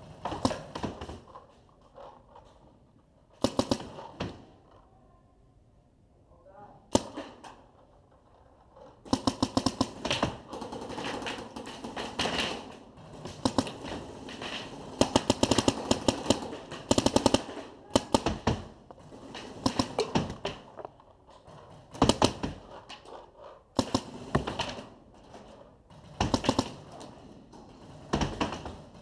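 Paintball markers firing in short bursts and rapid strings of shots, with quieter pauses between the bursts.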